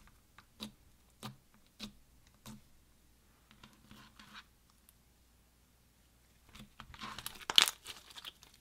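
Clear slime packed with small seed beads being folded and squeezed by hand: four sharp pops about every half second, a softer crackle, then a louder run of crackly, crunchy squishing near the end.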